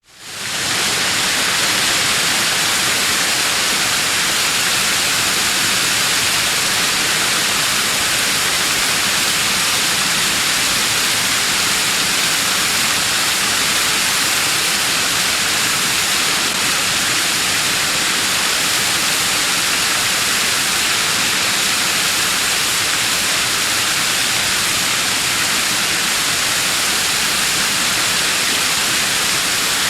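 Waterfall spray: a dense, steady hiss of falling and splashing water, strongest in the high end, fading in over the first second.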